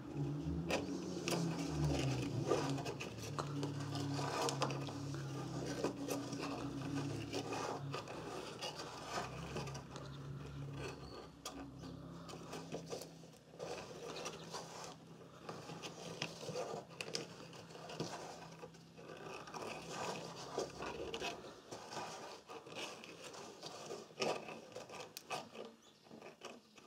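Steel recoil-starter spring of a Honda GX engine being coiled by hand into its plastic pulley: scattered small clicks and scrapes of the metal spring rubbing and snapping against the plastic.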